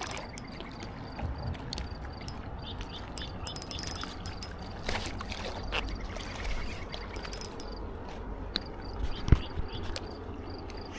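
Spinning fishing reel and rod being worked against a big fish on braided line: scattered small clicks and handling noise over a steady low rumble, with one sharp knock about nine seconds in.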